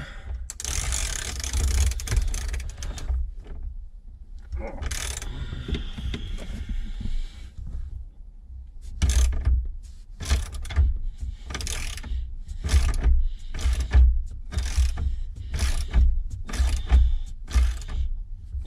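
Ratchet wrench tightening the steering wheel's retaining bolt down onto the steering column, with handling and scraping at first, then from about nine seconds in a steady run of ratcheting strokes, about one a second, as the bolt cinches up.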